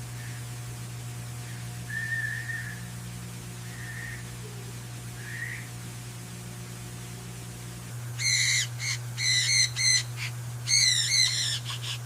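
Bird calls: a few soft whistled notes, then from about eight seconds in two bursts of quick, wavering high chirps, over a steady low hum.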